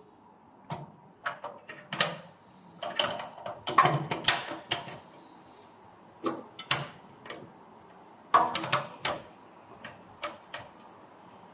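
Plastic plug-in circuit breakers being handled and pressed into a steel panel box: a run of sharp clicks and knocks in several clusters, with brief quiet gaps between them.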